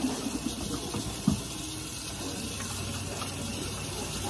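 Kitchen tap running steadily into a stainless steel sink while raw pork chops are rinsed under it by hand. A single thump about a second in.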